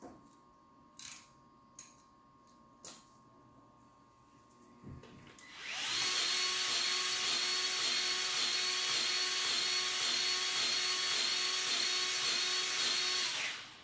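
A few light clicks, then a cordless grease gun's motor starts about six seconds in and runs steadily with a slight regular pulsing for about eight seconds before stopping. It is pumping grease into the track tensioner cylinder of a CAT 304D excavator, filling the piston chamber to tighten the track.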